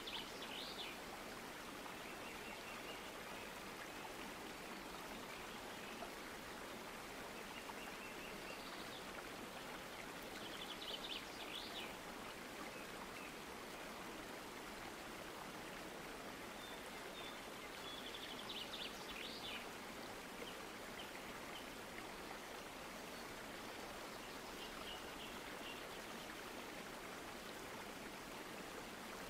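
Outdoor ambience: a steady rushing hiss like a stream, with short bursts of high bird chirping four or five times.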